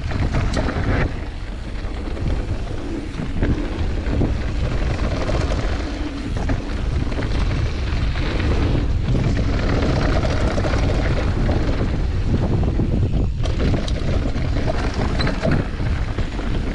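Wind buffeting the rider's camera microphone at speed, with mountain bike tyres rolling over a dry dirt trail and the bike rattling, plus a few sharp knocks over bumps.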